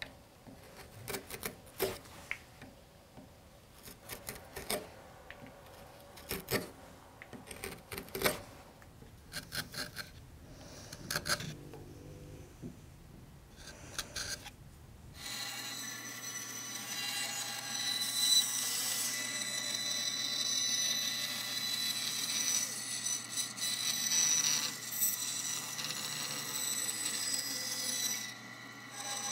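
A carving gouge paring walnut in a run of short, sharp cuts. About fifteen seconds in, a bandsaw takes over, running steadily with a high whine as it cuts a walnut spoon blank.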